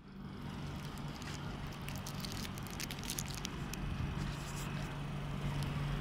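Vehicle engine idling, a steady low hum, with scattered clicks and taps in the first few seconds.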